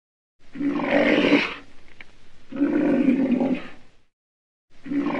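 Rhinoceros calls: loud, drawn-out, low calls, each lasting about a second and trailing off, with two in succession and a third starting near the end.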